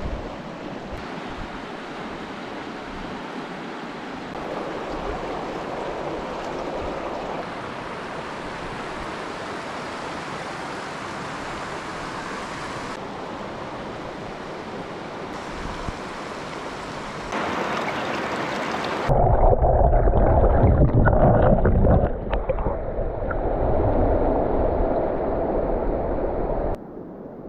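Shallow desert creek running over rocks: a steady rushing hiss that jumps in level at several cuts. About two-thirds of the way through, a much louder, deeper rumbling noise takes over and stops shortly before the end.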